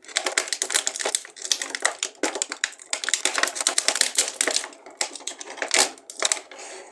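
Plastic toy packaging crinkling and crackling as it is handled, a dense run of rapid sharp clicks that thins out near the end.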